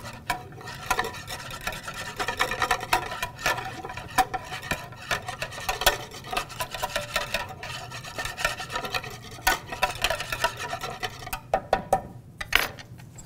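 Wire whisk beating a lemon-honey vinaigrette in a large clear bowl: a quick, irregular scraping and ticking against the bowl, with a few sharper taps near the end.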